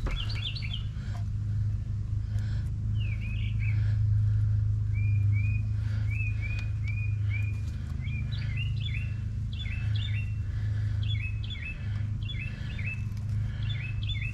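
Small birds chirping in quick runs of short, repeated notes over a steady low hum.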